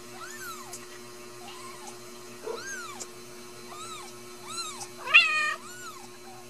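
Newborn Ragdoll kittens mewing: a series of short, thin, high-pitched mews, each rising and falling in pitch, about one a second, with one louder, lower and longer cry about five seconds in. A steady low hum runs underneath.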